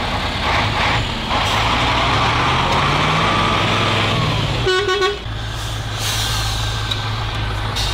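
Ural-4320 army truck's diesel engine revving up under load as it tows a stuck truck out of the snow on a kinetic rope, the pitch rising over a couple of seconds. A short horn toot comes about five seconds in, then the engine runs on steadily.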